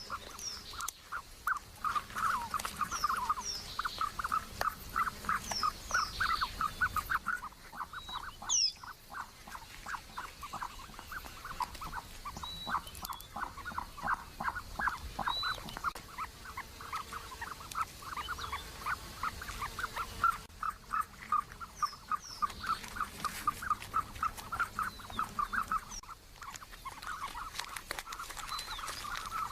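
Birds calling in a rapid, continuous run of pulsed notes, with short higher chirps now and then and a single sharp click about a third of the way through.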